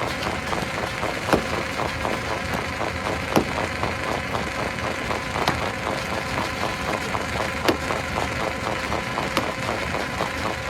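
Stone crusher machine running with a steady, fast rhythmic clatter and hum, broken by sharp cracks about every two seconds as rocks are broken in its jaws.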